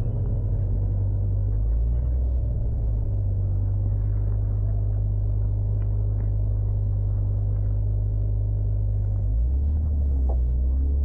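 Engine of a tuned Mk4 Toyota Supra (turbocharged 2JZ inline-six) running at steady low revs, a deep drone. A little over nine seconds in, its note shifts.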